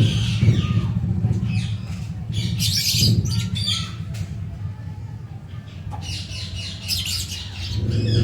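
Birds chirping and squawking in quick, repeated short calls over a steady low hum.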